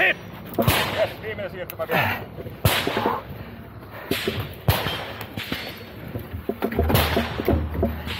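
Gunshots fired singly in a fast, even string, about one every two-thirds of a second, with a pause of over a second partway through and further shots near the end.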